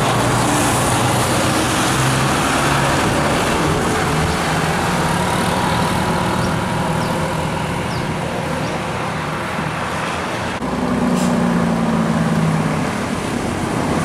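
Diesel engines of large tour buses running as they take a bend and drive past. About ten and a half seconds in the sound changes abruptly to another bus's engine approaching.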